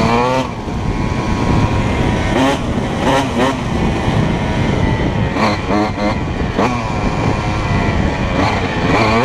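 Honda CR125R's 125cc two-stroke single engine, fitted with a full Pro Circuit exhaust, being ridden and revving up and dropping back again and again as the rider shifts and rolls on and off the throttle. There is a low rumble of wind on the microphone underneath.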